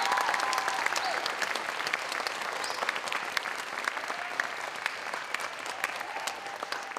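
Theatre audience applauding, a dense patter of many hands clapping that slowly dies down.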